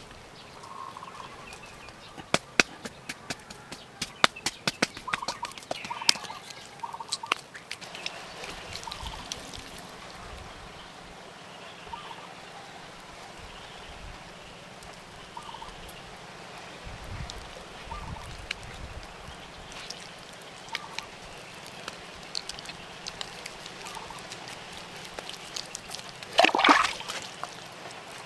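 Bare hands patting and slapping wet clay, a burst of quick slaps in the first ten seconds, while birds call at intervals, with one loud call near the end.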